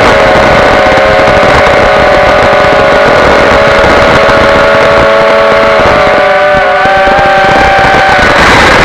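Electric motors and propellers of a QwinOut F4-X1 FPV racing quadcopter whining in flight, a loud steady multi-tone drone whose pitch wavers with the throttle and shifts near the end.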